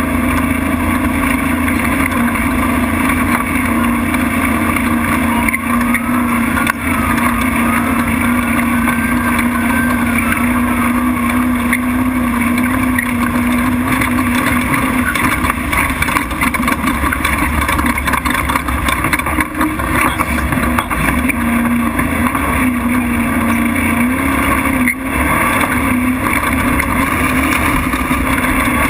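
Desert race truck's engine running hard at a steady high pitch, heard from a camera mounted on the hood, with frequent knocks and rattles from the rough dirt track. The engine note eases briefly a couple of times in the second half.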